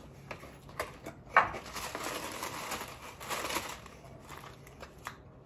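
Items being handled in a gift box: packaging rustling, with scattered light clicks and a sharper knock a little over a second in.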